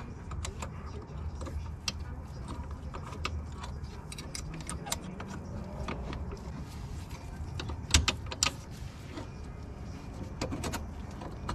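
Small metal clicks and clinks of rear drum brake hardware (shoes, springs and clips) being handled and fitted onto the backing plate, with the sharpest clicks about eight seconds in, over a low steady hum.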